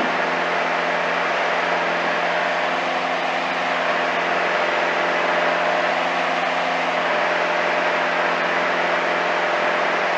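Piper Archer's single piston engine and propeller running steadily at climb power, heard inside the cabin as a constant drone.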